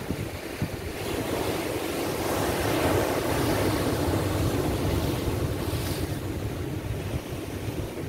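Atlantic Ocean waves breaking against a rocky shore. The rush of surf swells from about a second in and eases off again after about six seconds, with wind buffeting the microphone underneath.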